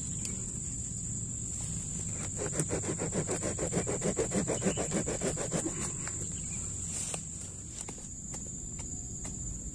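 A hand saw rasping back and forth through a woody lantana stem, about three strokes a second, from about two seconds in until about six seconds in. A steady high insect trill runs under it.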